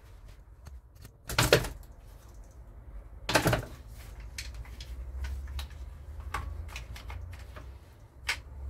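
Two knocks about two seconds apart among scattered light clicks, over a faint low hum.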